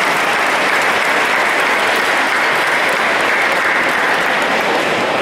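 Audience applauding steadily in a large hall, sustained clapping from a big crowd welcoming someone to the stage.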